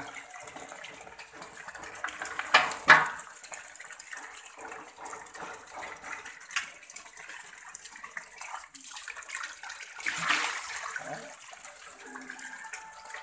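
Steady running water with a dog splashing in a metal basin of water. Two louder splashes come close together about two and a half seconds in, and another swell of splashing around ten seconds in.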